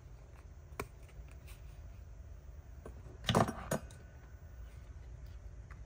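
Brief jingle of small metal craft hardware about three seconds in, in two quick bursts, with a light click about a second in.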